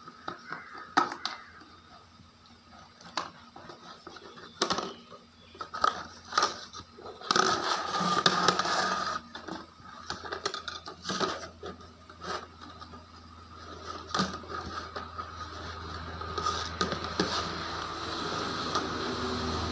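A small plastic bucket knocking and scraping on a hard floor as a Rottweiler puppy pushes and mouths it in play. The knocks come irregularly, with a longer run of scraping about seven to nine seconds in. A low rumble grows louder over the last few seconds.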